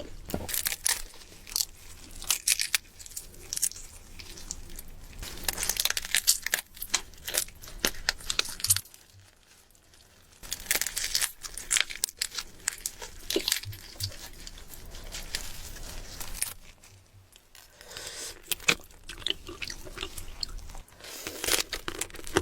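Close-miked chewing of crunchy food: bouts of sharp, crackling crunches, broken by two short pauses.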